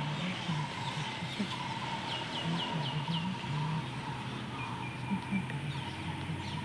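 Birds calling: a run of five quick, downward-sliding high notes about two seconds in, and a short steady whistle a little later, over a constant background of outdoor sound.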